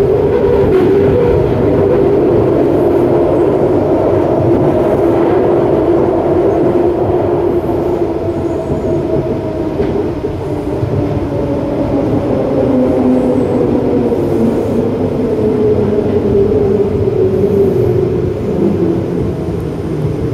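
Detroit People Mover car running on its elevated guideway, heard from inside: a steady whine from its linear induction motor over steel-wheel rumble, the whine falling in pitch over the last several seconds as the car slows into a station.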